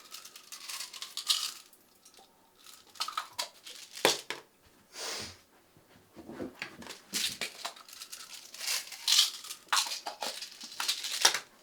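Crumpling and tearing handling noises in short, irregular bursts, with a brief hiss about five seconds in.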